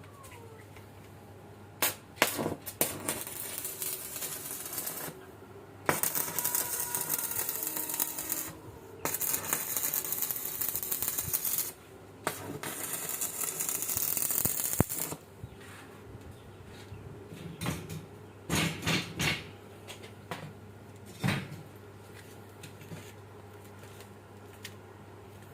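Electric arc welding: the arc crackles and sizzles in three runs of a few seconds each, with sharp metallic knocks before and after. A steady low hum runs underneath.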